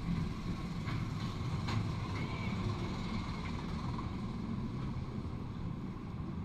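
Inverted B&M roller coaster train being hauled up its chain lift hill: a steady low rumble from the lift and train, with a few faint clicks about a second in.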